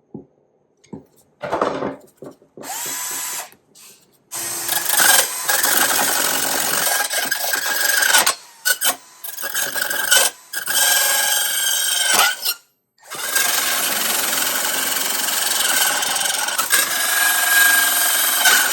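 A drill spinning a 72-teeth-per-inch high-speed steel mini rotary saw blade into two riveted layers of sheet metal, heard as a steady, loud grinding with three short stops. Before it starts there are a few short handling clicks and a brief spin-up. The blade is being forced: it gets through the first layer of metal but not the second.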